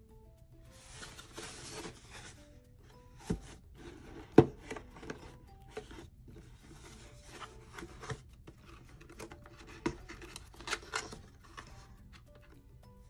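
Cardboard product box being handled and turned over by hand: rubbing and scraping of cardboard, with several knocks as it is set down or tapped, the loudest about four seconds in. Soft background music with a simple melody plays throughout.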